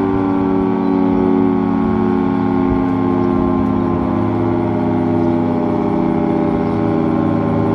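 Federal Signal 3T22 rotating electromechanical outdoor warning siren sounding a steady alert tone: a loud multi-tone chord, its pitch sagging slightly and its loudness wavering a little.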